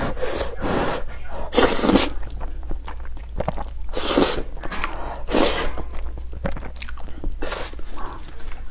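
A person eating spicy noodles close to the microphone, chewing and slurping, with about five louder slurps spaced a second or two apart.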